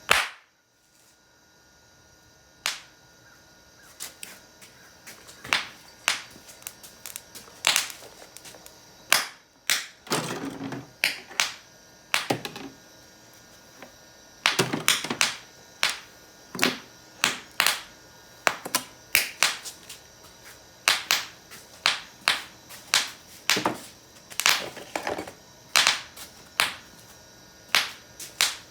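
A long run of sharp pops from a homemade 'bucket of bangs' firecracker substitute. They come irregularly at first, then steadily at about one to two a second from midway. Some are louder, with a short ring after them.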